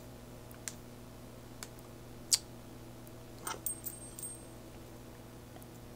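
Computer mouse clicks: a few sharp single clicks, one louder about two seconds in, then a quick cluster of light clicks and taps about halfway through, over a steady low hum.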